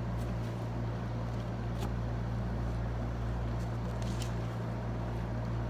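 Steady low mechanical hum of a room air conditioner running, with a few faint clicks from eating.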